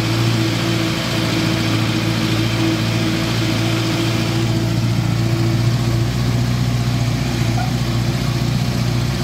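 Engine of an owner-type jeep running steadily while driving, a low, even hum heard from inside the vehicle.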